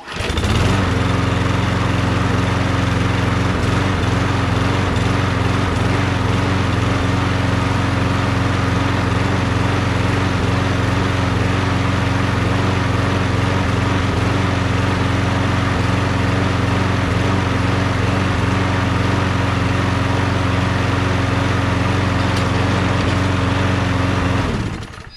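MTD walk-behind lawn mower engine catching on the first pull and running steadily at one speed, then shut off near the end. It starts readily after a missing spark plug was fitted and the mower sat for three days.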